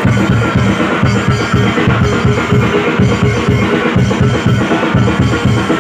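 Live reog and jaran dor ensemble music: drums, including a deep bass drum, beating a fast, even rhythm under held melodic tones.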